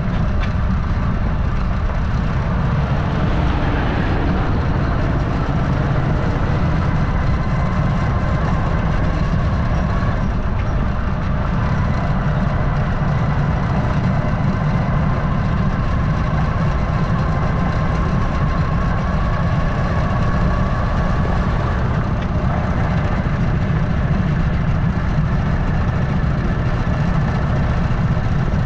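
A vehicle engine running steadily under a heavy low rumble, with a faint whine that rises slightly in pitch around the middle.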